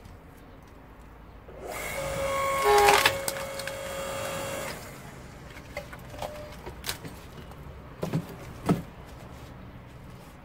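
A log splitting under the wedge of an AL-KO KHS 5204 5-ton hydraulic log splitter: the wood creaks, squeaks and tears for about three seconds, with the loudest crack midway. Afterwards come a few knocks and two sharper thumps as the split pieces are handled.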